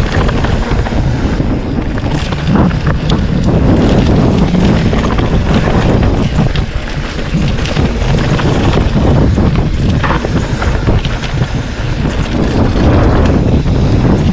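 Wind rushing loudly over the microphone as a full-suspension mountain bike descends a downhill trail at speed, with a rumbling tyre noise and scattered knocks and rattles from the bike over the ground.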